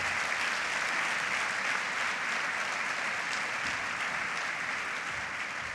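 A large audience applauding steadily, tapering off slightly near the end.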